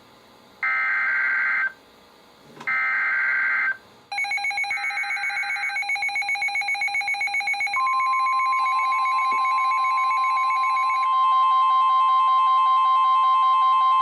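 NOAA Weather Radio SAME alert header: three one-second bursts of warbling digital data tones, a second apart. From about four seconds in, a roomful of weather radios set off their alarm beeps together. Then the steady 1050 Hz warning alarm tone starts about eight seconds in, and more radios join the beeping near the end.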